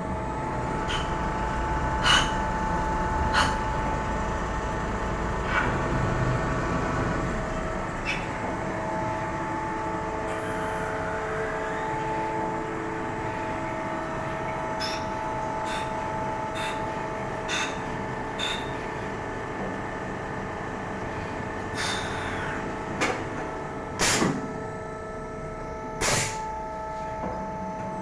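Mini CNC lathe running in production: a steady machine hum made of several constant tones. Sharp clicks and knocks come at irregular intervals, and two short hisses come near the end.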